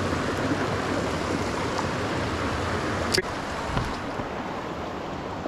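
Creek water rushing and cascading over rocks, a steady roar, with one sharp click about three seconds in.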